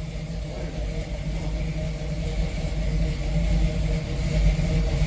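V8 engine running with a low rumble, growing steadily louder as the vehicle moves.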